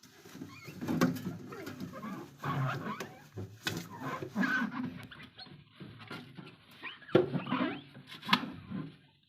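Objects being handled, shuffled and set down, with irregular rustling and several sharp knocks and clicks.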